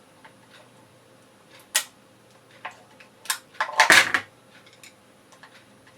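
Handling noises from a plastic carbon monoxide alarm and its batteries: a few sharp clicks, then a louder clatter and rattle about four seconds in.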